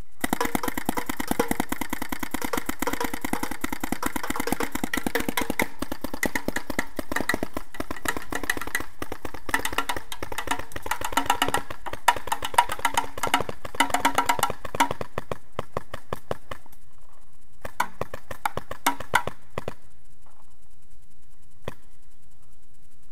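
Smart Parts Vibe paintball gun firing long rapid strings of shots for about sixteen seconds, then a few short bursts and one last single shot near the end. The gun fires faster than its hopper can feed paintballs.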